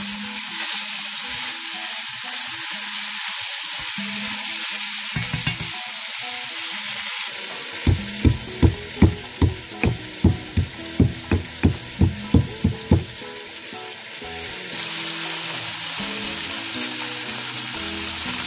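Chicken and pork sizzling as they fry in an enamelled pot while a spatula stirs them. About eight seconds in, a stone pestle pounds ginger and garlic in a granite mortar: about fourteen dull thuds at a steady three or so a second, after which the sizzling comes back.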